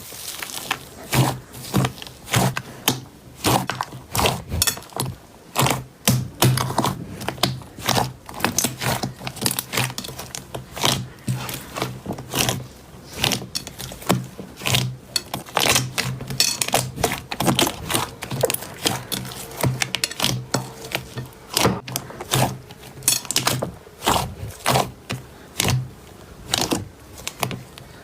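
Slime being squeezed and poked by hand, giving irregular sharp crackling pops and clicks, several a second.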